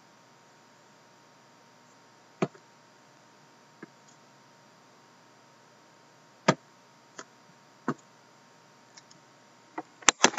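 Scattered sharp clicks and light knocks from sealed cardboard hobby boxes of hockey cards being handled, turned over and set down on a table, the strongest about two and a half and six and a half seconds in. Near the end comes a quick run of clicks as a hand takes a computer mouse.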